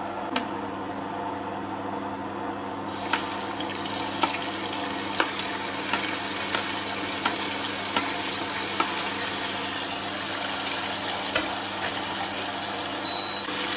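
Chopped onions going into hot oil and cumin in a pressure cooker: a frying sizzle that jumps up about three seconds in and keeps going. A steel serving spoon clicks now and then against the cooker.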